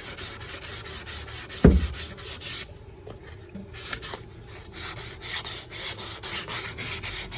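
220-grit sandpaper rubbed back and forth over a wooden shelf, about four strokes a second, smoothing out a dent that has been steamed up. A sharp thump comes about a second and a half in, and the sanding stops for about two seconds in the middle before it starts again.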